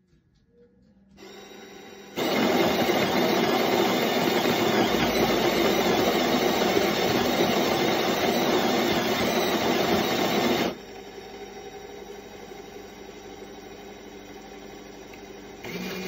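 Spinn coffee machine starting an espresso cycle. A motor hum starts about a second in, then a loud rough whirring runs for about eight seconds, plausibly the built-in grinder grinding the beans. It then cuts back to a steady, quieter machine hum.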